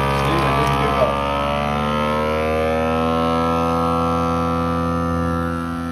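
FoodSaver vacuum sealer's pump running steadily as it draws the air out of a bag, pulling the plastic tight around the bread inside. Its pitch sags slightly in the first second or two, then holds steady.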